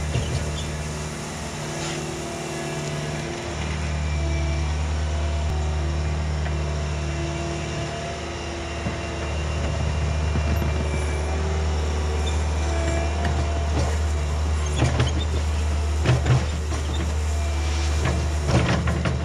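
Diesel engine of a compact loader running steadily under work, with a few knocks and clatters from the machine in the last few seconds.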